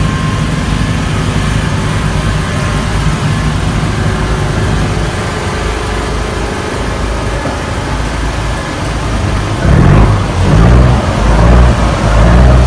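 Boat engine running at idle with a steady low rumble while the boat sits alongside the kelong. About ten seconds in it grows louder and rises and falls in uneven surges.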